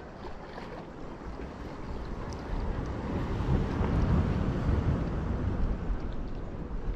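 Ocean surf and wind noise, a rushing wash that swells about halfway through and slowly eases.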